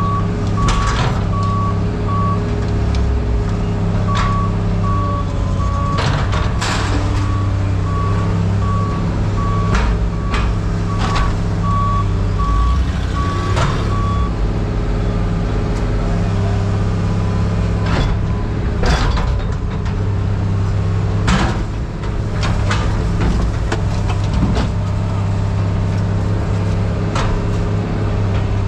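Diesel engine of a scrap-yard material handler running steadily, with its warning alarm beeping about twice a second until about halfway through. Scrap metal clanks and bangs now and then.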